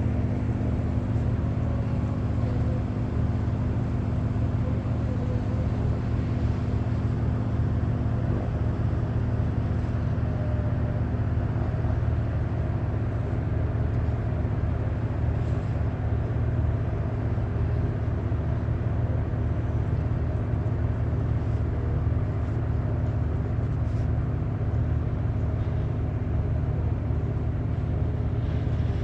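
A boat's engine running steadily: a low, even drone with no change in speed.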